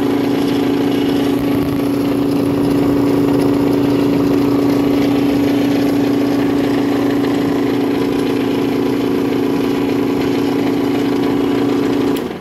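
Electric motor belt-driving a homemade 3D-printed permanent magnet generator at about 900 rpm: a steady mechanical hum with one strong held tone. It stops abruptly near the end.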